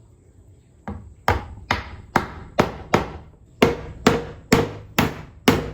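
Hammer blows driving tight-fitting maple dowels into their holes: about eleven sharp strikes at roughly two a second, with a brief pause midway. The dowels are too snug to go in by hammering.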